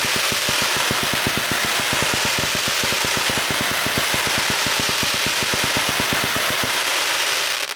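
A multi-shot consumer fireworks cake firing in rapid succession: launches pop many times a second over a continuous loud hiss, then stop abruptly near the end.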